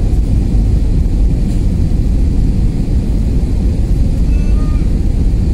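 Steady low roar of a jet airliner's cabin noise, engine and airflow heard from a window seat during the descent on approach to landing.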